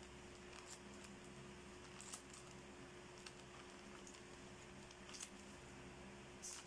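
Faint, scattered snips and crinkles of scissors working on a thin plastic courier mailer, a few seconds apart, over a steady low hum.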